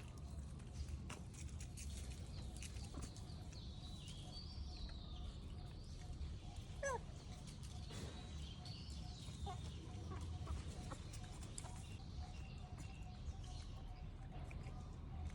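Faint animal calls over a low steady rumble: a few high chirps, one short falling call about seven seconds in, and scattered small clicks.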